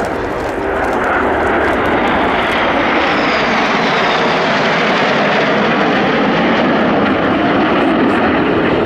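A formation of Canadair NF-5 jet fighters, each with two General Electric J85 turbojets, flying past: loud, steady jet engine noise that builds over the first second and holds, with a faint high whine falling in pitch about three seconds in.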